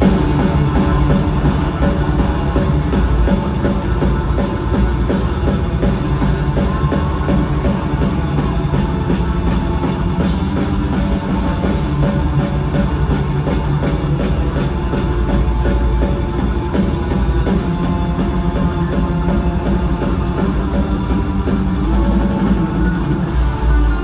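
Live metalcore band playing an instrumental passage with no vocals: distorted guitars over a pounding drum kit and bass.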